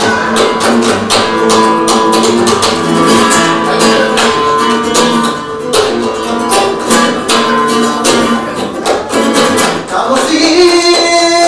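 Acoustic guitar played live in a brisk, rhythmic style, with sustained notes cut through by many sharp percussive strums. About ten seconds in, a wavering melodic line, sung, joins the guitar.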